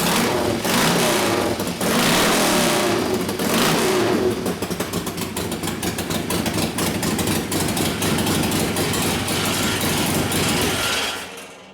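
1972 Harley-Davidson Ironhead Sportster's air-cooled V-twin, freshly rebuilt, running on choke just after firing on the first kick. It revs unevenly for the first few seconds, then runs steadier until it is shut off about eleven seconds in.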